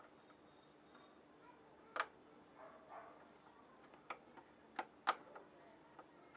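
Scattered sharp clicks and taps of a screwdriver and screws against a motorcycle's air filter box cover, about seven in all, the loudest about two and five seconds in.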